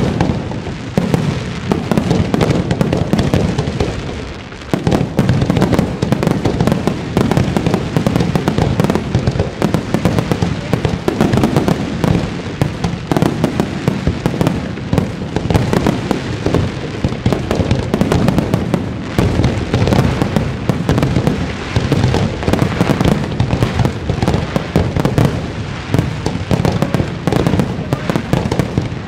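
Fireworks display: a dense, almost unbroken barrage of aerial shells bursting and banging, easing off briefly about four seconds in.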